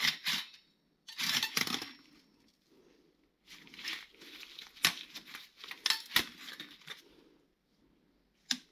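Rustling and scraping handling noises as car clutch discs are picked up and turned over in gloved hands, with a few sharp clicks as the parts knock together.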